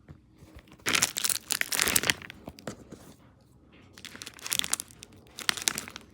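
Crinkly plastic being handled and scrunched, in three bursts of harsh rustling with quieter fiddling between them.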